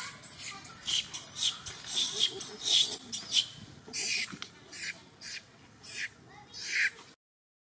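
Baby long-tailed macaque squealing: a run of short, very high-pitched cries, about two a second, that cut off suddenly about seven seconds in.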